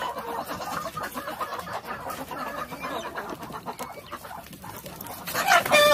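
Chickens clucking in a farmyard flock. Near the end a louder squawking call breaks out as a rooster is caught by hand.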